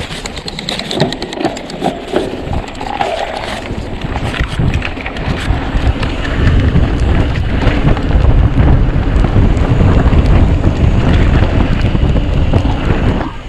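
Mountain bike riding down a dirt downhill trail, with tyre noise and the bike's rattles and knocks. Wind buffets the microphone with a low rumble that grows louder about six seconds in.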